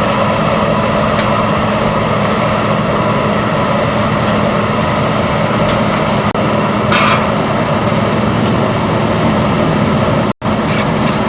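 Bulldozer's diesel engine running steadily as the dozer creeps in reverse down the trailer ramps, with a brief metallic knock about seven seconds in. The sound cuts out for a moment near the end.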